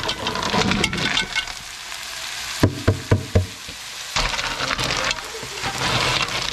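Grisette clams tipped into a hot oiled pan of chopped onion, shallot and garlic: the shells clatter in, a few sharp knocks follow around the middle, then they sizzle in the fat while a wooden spatula stirs and scrapes them around, louder in the second half.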